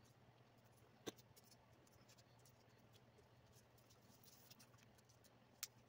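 Near silence: room tone with a faint low hum, broken by two small clicks, one about a second in and one near the end.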